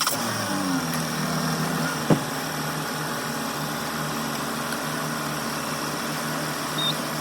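2020 Volvo XC40's engine starting on a newly fitted battery: it catches, its pitch falls over the first two seconds, and it settles into a steady idle. A single sharp click comes about two seconds in.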